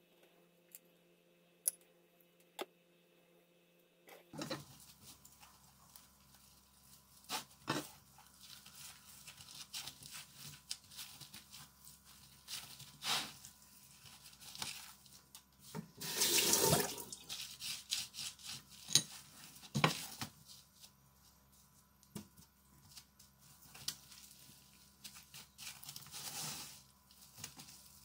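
Hands rolling and pressing a sushi roll in a cling-film-wrapped bamboo mat on a plastic cutting board: scattered rustles, clicks and light taps, with one louder rustle of about a second midway.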